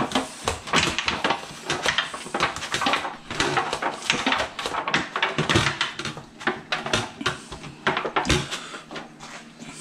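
Rapid, irregular knocks and clatter of kitchen handling around a metal baking tray as it is oiled and handled.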